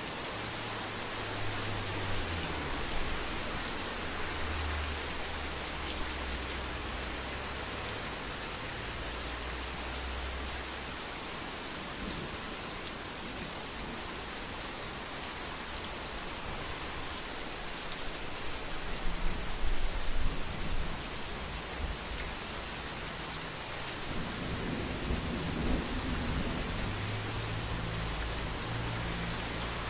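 Heavy rain falling steadily on a roof as a dense, even hiss. Low rolling thunder rumbles under it several times: through the first ten seconds, loudest about two-thirds of the way through, and again near the end.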